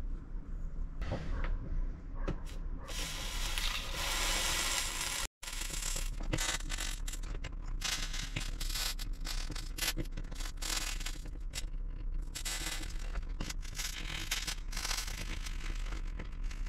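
Soldering iron melting solder onto freshly fluxed joints of a leaded glass panel, with a steady fine crackle of the flux and solder at the hot tip. A few clicks and a hiss come first, then a sudden break about five seconds in, and the crackling runs on after it.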